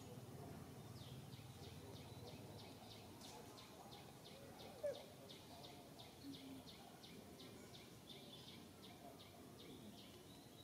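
Faint outdoor ambience with a small creature's short high chirp repeated about three times a second, and a brief sharp sound about five seconds in.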